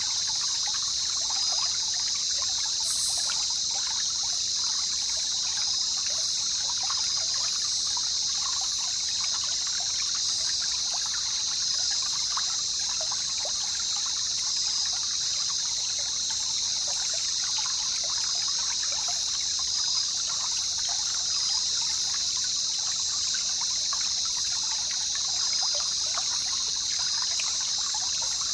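Jungle river ambience: water trickling and babbling, over a steady high-pitched hiss. Faint short rising chirps come every couple of seconds.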